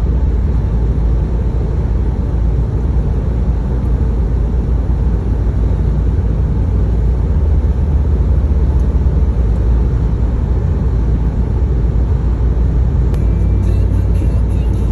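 Steady low rumble of a car on the move, road and engine noise heard without break.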